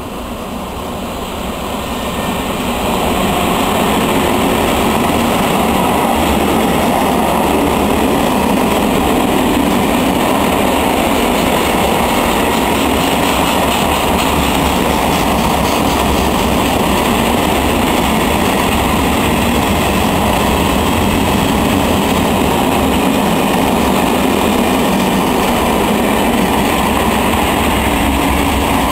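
Freight train of covered hopper wagons hauled by a diesel locomotive passing close by. It grows louder over the first few seconds, then holds a steady noise of wagon wheels rolling over the rails.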